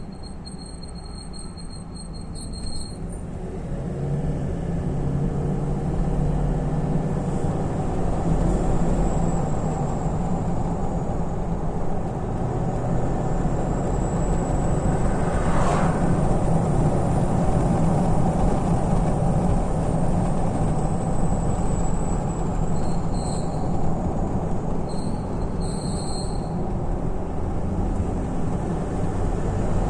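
Seized brake caliper on a third-generation Range Rover dragging and squealing as the vehicle moves: a thin, high squeal that slowly rises and then falls in pitch over a steady rumble of road and engine noise that builds in the first few seconds.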